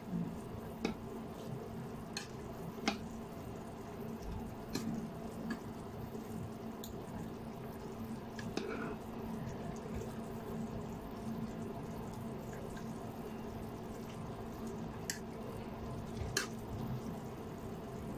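A metal spoon stirring a pot of simmering soup, clinking against the pot now and then over a steady low hum. The clinks come a few times in the first five seconds and twice more near the end.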